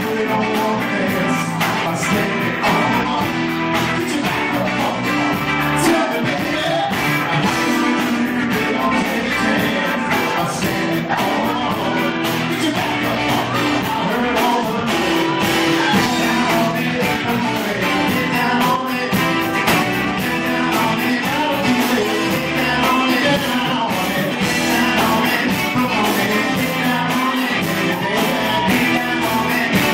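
Live rock band playing: a male singer over electric guitar, electric bass, drum kit and keyboards, at a steady loud level.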